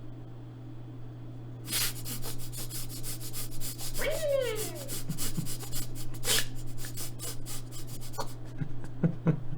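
Rapid, dense rubbing and scratching close to the microphone, starting about two seconds in and running on, with a short falling voice-like sound about four seconds in and a few soft knocks near the end.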